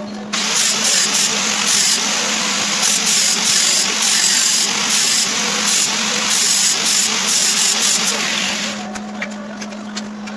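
MIG welding arc crackling and sputtering steadily for about eight seconds, starting just after the beginning and cutting off near the end. A steady electrical hum runs underneath, and a few light ticks follow once the arc stops.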